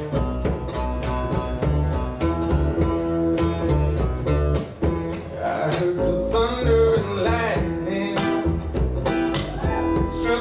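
Live folk band music: acoustic guitar strummed hard over a steady kick-drum beat and plucked upright bass, with singing coming in about halfway through.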